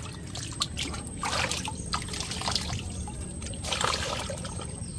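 Shallow canal water splashing and trickling as hands grope through it for prawns, with two louder splashes, about a second in and just before four seconds.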